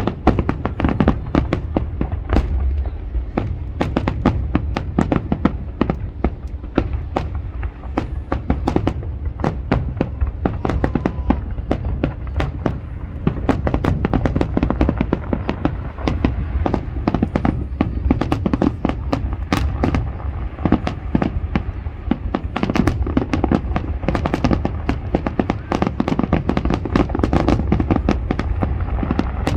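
Aerial fireworks going off in a dense, continuous barrage: rapid sharp bangs and crackles many times a second over a constant low rumble of booms.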